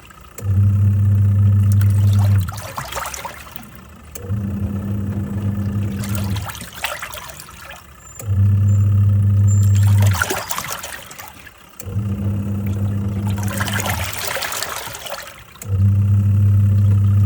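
Twin-tub washing machine agitating: the wash motor hums for about two seconds, stops, then starts again as the pulsator reverses direction, five times over, with the water and clothes sloshing and splashing in between.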